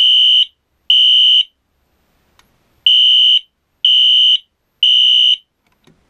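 Wheelock NS fire alarm horn sounding a steady high electronic tone in the temporal-three evacuation pattern: two beeps finishing one group, a pause of about a second and a half, then a full group of three half-second beeps a second apart. Loud, and it seems louder than the first unit.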